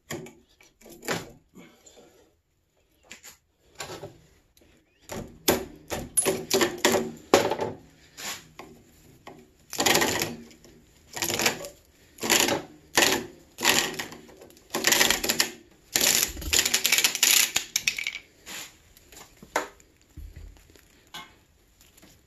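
Copper winding wire being pulled off a small transformer coil by hand, in irregular pulls: scraping and rattling against the coil and the screwdriver through it, with sharp metallic clicks and longer scraping runs about halfway through and again a few seconds later.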